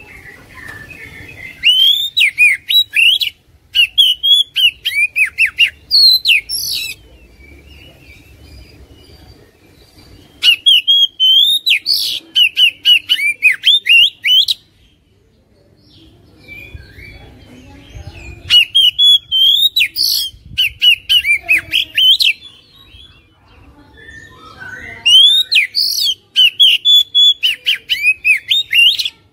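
Male oriental magpie-robin singing in four bursts of rapid, rising and falling notes, with short pauses between.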